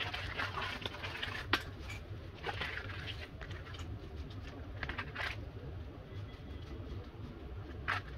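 Water bubbling in a steel pot as dry spaghetti is pushed down into it, with a few sharp clicks of the stiff strands against the pot, over a steady low hum.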